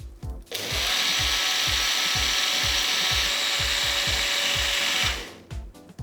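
Electric mixer grinder running, blending the milk and spice mixture into a paste, with a steady motor whine; it starts about half a second in and stops about five seconds in. Background music with a steady beat plays underneath.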